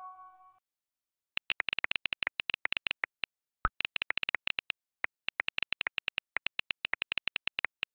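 Rapid iPhone keyboard clicks as a message is typed, several taps a second with short pauses, and one deeper click a little before the halfway point as the message is sent. A message chime is fading out at the start.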